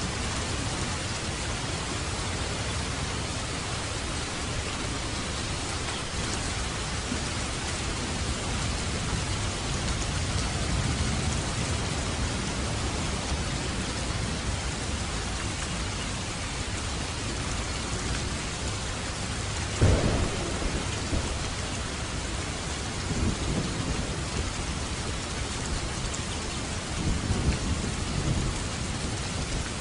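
Steady rain falling, with thunder: a sharp clap about two-thirds of the way through, followed by lower rumbles.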